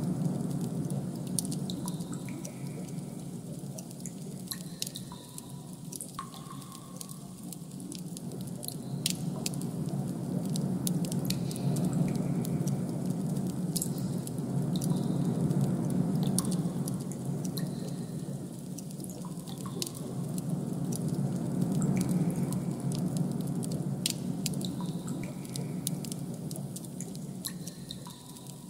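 Designed ambient soundscape: a low hum that swells and fades in slow waves, under scattered drip-like clicks and short, soft high tones.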